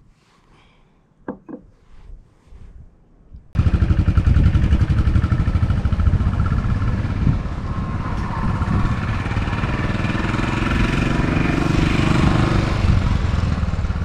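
Royal Enfield motorcycle engine starting abruptly about three and a half seconds in, then running loud and close with a fast, even pulsing beat.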